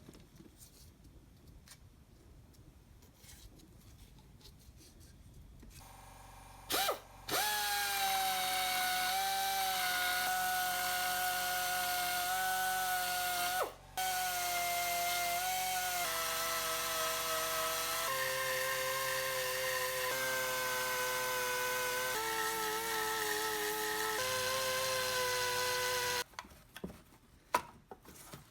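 Electric power tool motor, drill-like, running at speed with a steady whine. It stops briefly twice near the start, and its pitch drops and shifts in sudden steps several times as its speed changes, before it cuts off. A few light knocks follow it.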